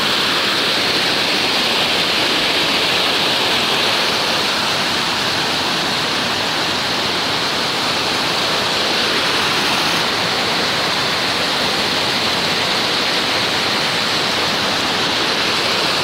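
Steady, loud rush of falling water from a mountain waterfall.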